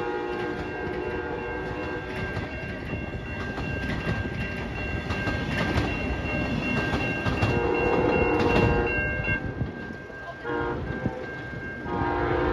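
Amtrak passenger train passing over a grade crossing, its wheels clattering over the rail joints. The locomotive horn sounds in several blasts as the train moves away: a long one at the start, another a little past halfway, a short one after it and another near the end. The crossing's warning bell rings steadily underneath.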